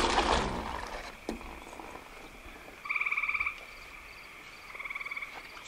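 A frog's fast-pulsed trill, short and high-pitched, about three seconds in, with a fainter trill near the end. A brief rush of noise at the very start is the loudest sound.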